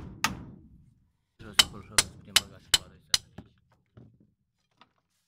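Hammer driving a nail into a thin wooden pole: one strike, then after a short pause a quick run of six sharp blows, then a few faint taps.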